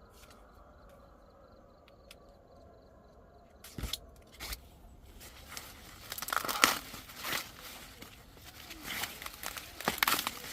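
Dry corn husks and leaves rustling and tearing. After a quiet start and a couple of knocks, the crackling, tearing handling grows busier through the second half.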